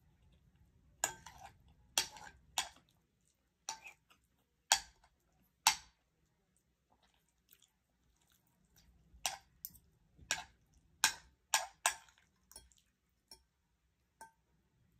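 Metal spoon and fork clinking and scraping against a plate while eating, in sharp ringing strikes: a run of about six in the first six seconds, then a quicker cluster from about nine to twelve seconds, with a few fainter taps near the end.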